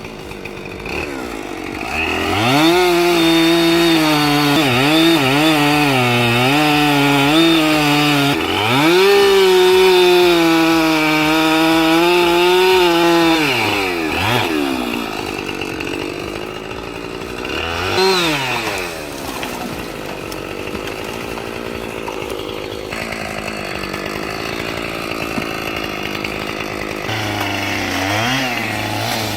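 Chainsaw running at full throttle, its pitch sagging and recovering as the chain works through wood, then dropping off about fourteen seconds in. It revs up briefly around eighteen seconds, runs quieter for a while, and climbs again near the end.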